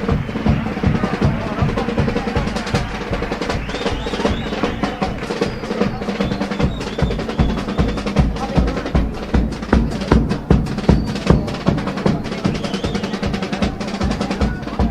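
Instrumental passage from a Cádiz-style carnival chirigota band: bass drum and snare drum beat a quick, dense rhythm under the group's music.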